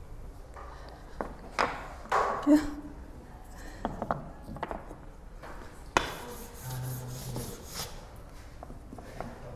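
Chalk tapping and scraping on a chalkboard as a line is written, in short scratchy strokes with a sharper knock about six seconds in.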